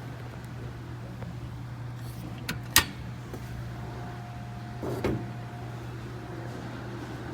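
Car hood being unlatched and raised: a small click, then a sharp, loud metallic click from the latch, and a little later a softer scrape as the hood goes up, over a steady low hum.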